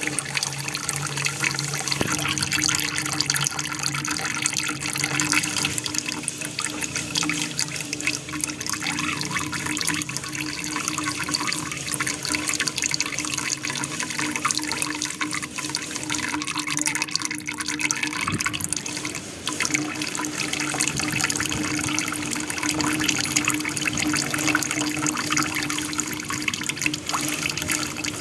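Water from a small aquarium waterfall splashing and trickling steadily, with a faint steady hum underneath.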